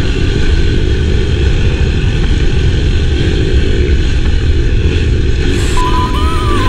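Enduro motorcycle running steadily on the move, under a loud, even rushing noise. A short high warbling whistle comes near the end.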